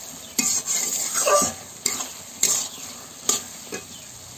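Wooden spatula stirring chicken pieces in thick masala gravy in a hot kadai, the curry sizzling, with several sharp scrapes of the spatula against the pan.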